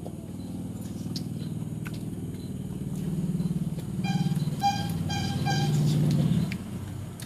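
A motor vehicle engine running close by, growing louder and then dropping away shortly before the end. Four short beeps in quick succession come in the middle.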